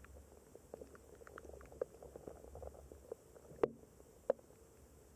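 Underwater sound of a shallow flowing stream: a steady low rumble with irregular sharp ticks and clicks, two louder clicks about three and a half and four seconds in.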